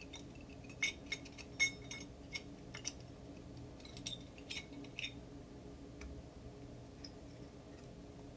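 Sharp plastic clicks and taps as the bolt covers are snapped back over the mounting posts of an American Standard quick-release toilet seat: about six clicks in the first three seconds, then a quick cluster around four to five seconds in.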